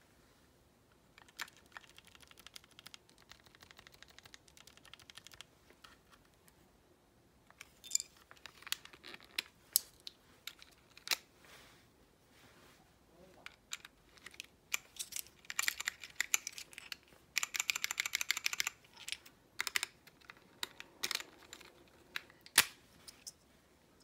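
Typing on a Moonlander mechanical keyboard with Gateron Pro White switches and low-profile keycaps: irregular flurries of quick key clicks with short pauses between. The densest run comes about two-thirds of the way through, and a single louder clack comes near the end.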